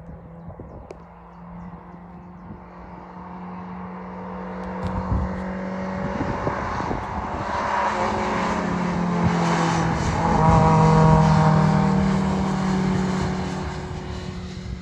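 Race car engine at steady high revs, approaching, passing close and pulling away: the note grows louder to a peak about ten seconds in, then fades.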